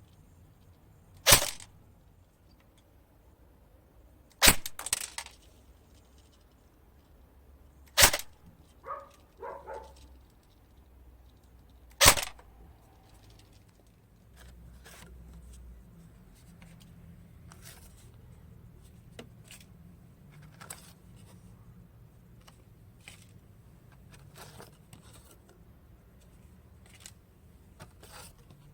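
Airsoft gun firing four single shots a few seconds apart, each a sharp crack, the first two minutes of handling between them marked by small rattles. After the fourth shot only faint clicks and handling rustle.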